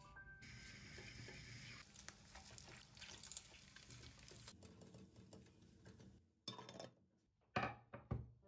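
Faint sizzling of butter sauce with mint and red pepper flakes simmering in a pan. Near the end come a few knocks as a wooden serving board and ceramic plates are handled and set down on the countertop.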